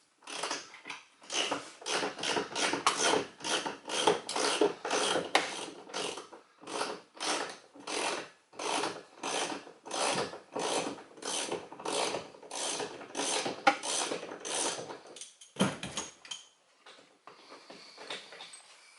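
Ratchet driving a T50 Torx bit, clicking in quick back-and-forth strokes about three a second as it works a seatbelt bolt loose. The strokes stop about fifteen seconds in, followed by a single low knock and faint rustling.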